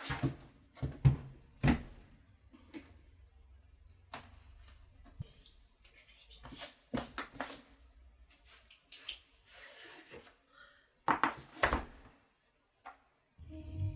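Box and packaging being opened and handled by hand: irregular rustles, scrapes and light knocks, with a few louder knocks about a second in and again near the end.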